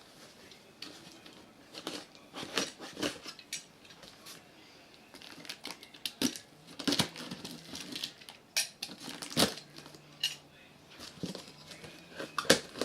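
A shipping package being opened by hand: irregular clicks, knocks and rustles of cardboard and packing, with a few sharper knocks scattered through.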